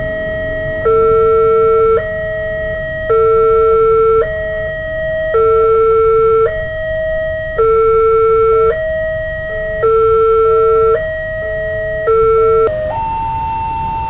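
Electronic two-tone warning alarm of a railway level crossing, switching between a low and a high tone about once a second, the low tone louder. Near the end it cuts to another crossing's alarm with different, longer steady tones.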